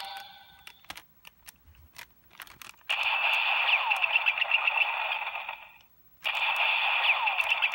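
Kamen Rider Ghost DX toy playing an electronic ringing, bell-like sound effect through its small speaker in two bursts of about three seconds each, the first starting about three seconds in. Before it, a few light plastic clicks of the toys being handled.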